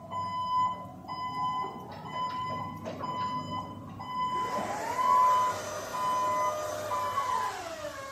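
Hyundai electric reach truck's warning alarm beeping in a steady high tone a little more than once a second, while its electric motor whines up in pitch about halfway through, holds, and winds back down near the end as the truck manoeuvres.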